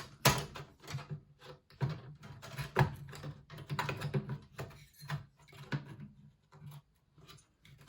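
Irregular clicks, knocks and scrapes of a GT 1030 graphics card being worked into the PCIe slot and bracket of a small-form-factor desktop case, with sharper knocks about a third of a second in and near three seconds in, and a quieter spell near the end.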